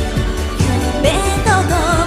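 A young woman sings solo into a microphone over a J-pop backing track with a steady bass and drum beat. Her voice climbs about a second in, then holds a wavering vibrato note near the end.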